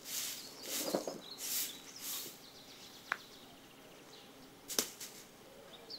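Short grass broom sweeping a packed-earth yard: quick swishing strokes, one every half second or so, that stop about two seconds in. Then two sharp clicks, a couple of seconds apart.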